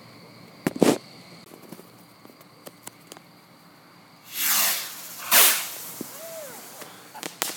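Fireworks going off: a couple of sharp bangs about a second in, then two launches about four and five seconds in, each a whoosh falling in pitch, as two shells streak up into the sky, and a few sharp cracks near the end.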